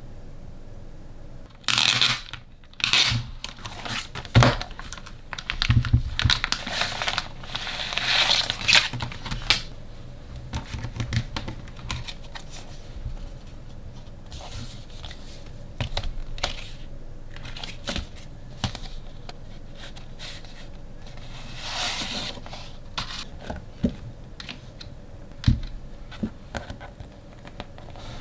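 Glossy plastic mailer bag being torn open and crinkled by hand: bursts of tearing and rustling through the first ten seconds and another rustle a little past the middle, with soft handling knocks in between as the cardboard photo frame is taken out.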